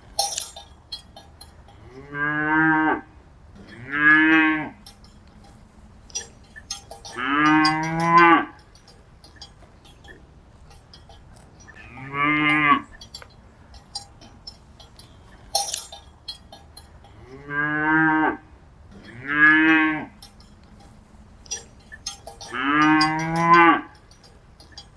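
Cattle mooing: seven short moos of about a second each, some in quick pairs, with light clicks and clinks in between.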